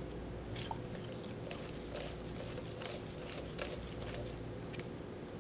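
Light metallic clicks and ticks, about a dozen at irregular intervals, as a left-hand-threaded part of a Fluke 10 kPa/kg piston-cylinder assembly is unscrewed by hand.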